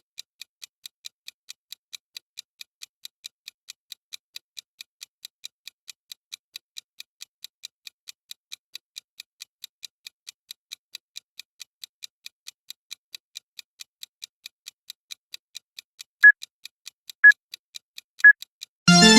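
Countdown timer's clock-like ticking sound effect, an even tick about four times a second. Near the end three louder short beeps, a second apart, count down the final seconds, and a ringing alarm tune starts just at the close as time runs out.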